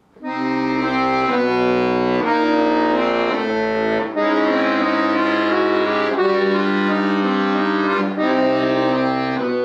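Accordion playing a slow tune in held chords over bass notes, the chords changing every second or two, with brief breaks in the phrasing about four and eight seconds in.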